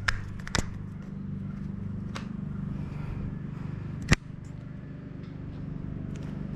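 A few sharp clicks and taps from bicycle shift-cable housing and frame fittings being handled, with one loud snap about four seconds in, over a steady low hum.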